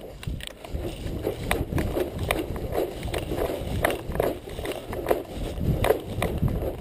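Hurried footsteps through long grass: a steady series of footfalls as a person moves quickly on foot.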